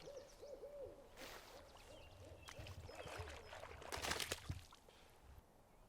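Faint, short hooting animal calls repeating about three times a second, then dying away near the end. A rustle comes about a second in, and a louder burst of rustling and handling noise around four seconds in.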